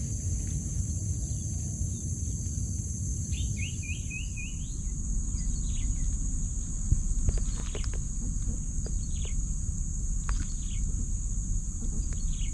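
Outdoor ambience: a steady high-pitched insect drone with a bird calling in short chirps, including a quick run of chirps about three and a half seconds in, over a low rumble, with a few sharp clicks near the middle.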